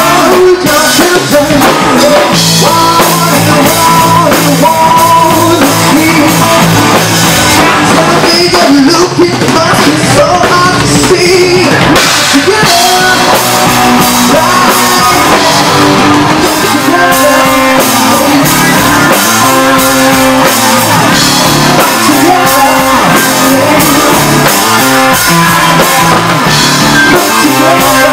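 Live band playing loud rock: drum kit, guitar and a lead vocal.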